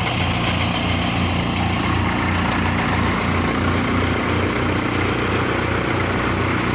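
Tractor-driven chaff cutter running steadily under engine power, with a low throb repeating about twice a second and a steady high whine.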